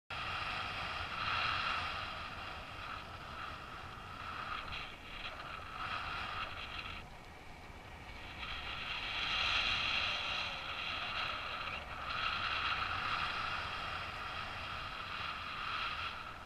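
Wind rushing over the camera microphone of a paraglider in flight, a steady hiss that swells and eases every few seconds.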